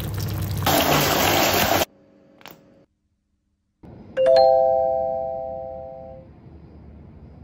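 A rushing noise that cuts off abruptly, then, after a moment of quiet, a single bell-like chime struck once, ringing and fading away over about two seconds.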